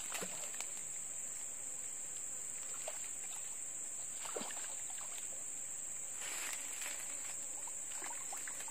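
Steady high-pitched insect buzz, a cricket or cicada-type drone, with a few faint rustles and knocks.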